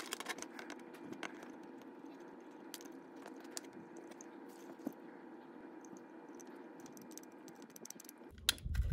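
Light clicking and scraping of fingers working at a model locomotive's metal chassis and painted body, trying to pry them apart, over a steady room hum. Near the end there is a louder handling clatter with a low rumble.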